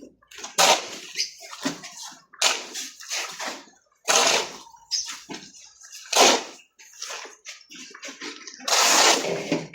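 Water splashing and sloshing in a series of irregular bursts, like water being poured or scooped and thrown; the longest splash comes near the end.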